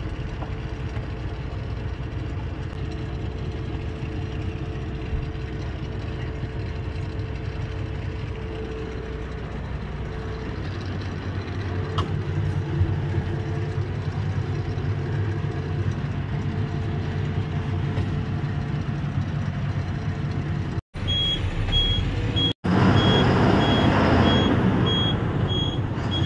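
Lorry engine running, heard from inside the cab as a steady drone that grows louder and deeper about ten seconds in. Near the end, after two brief cuts, louder road traffic noise with a rapid run of high-pitched beeps.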